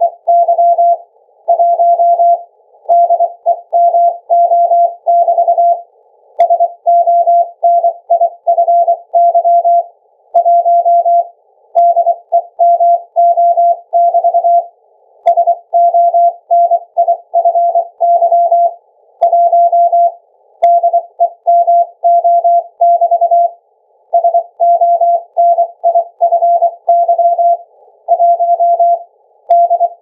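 Ultrasonic Morse code near 21.5 kHz, sent from a laptop's internal speakers and shifted down in software to an audible tone of about 650 Hz. It is a single pitch keyed on and off in dots and dashes, spelling out "SONIFY 1 DEMO" over and over with short pauses between repeats, over a soft band of noise around the tone. A few faint clicks come through.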